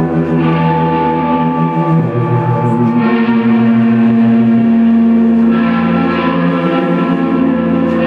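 Live band playing a slow, droning instrumental passage: sustained, ringing electric guitar chords through effects over low held notes that change about two seconds in and again near five seconds.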